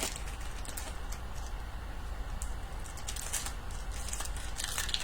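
Light handling of trading cards and their foil pack wrappers: scattered soft clicks and rustles, a few more near the end, over a low steady hum.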